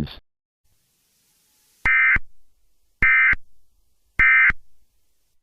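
Three short electronic data bursts from an Emergency Alert System SAME signal, each about a third of a second long and a little over a second apart. They are the end-of-message code that closes the alert.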